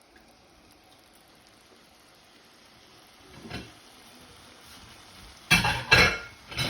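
A faint steady hiss, a soft knock about halfway through, then two loud, sharp knocks about half a second apart near the end and a third right at the end.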